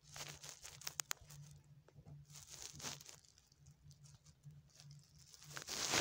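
Scuffling, scratching rustles close to the microphone, coming in bursts: a few sharp clicks about a second in, another burst a couple of seconds later, and the loudest rustle near the end.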